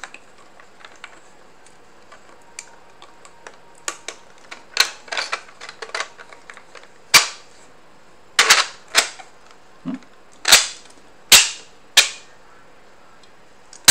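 Hard plastic parts of a 3D-printed blaster knocking and clacking together as the body sections are wiggled and pushed into place. There are a few soft taps at first, then louder single clacks, irregularly, about every half second to a second from about seven seconds in.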